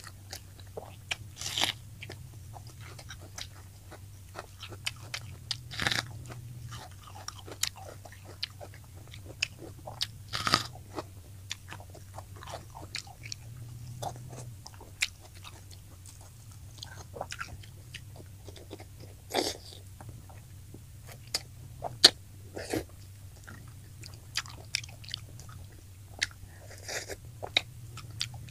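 A person eating fried tilapia: crisp bites and chewing with sharp crunches at irregular moments, the sharpest about two-thirds of the way through, over a low steady hum.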